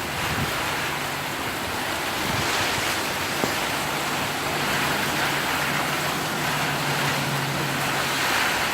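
Rain pouring down steadily as a storm moves in, an even, unbroken hiss.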